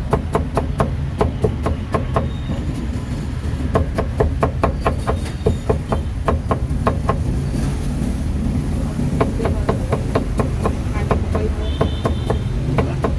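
Steel cleaver chopping cucumber on a thick round wooden chopping block: quick, even chops at about four or five a second, with a break of a second or so past the middle before the chopping resumes.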